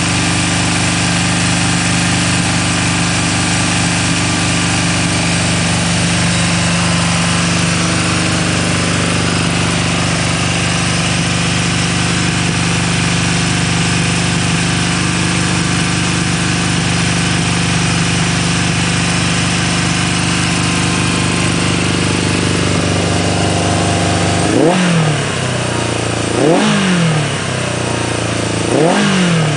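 1982 Yamaha XJ550 Maxim's air-cooled inline-four running steadily at a fast idle, set far too high, on its first run in the restoration. Near the end the throttle is blipped three times, each rev rising sharply and falling back to idle.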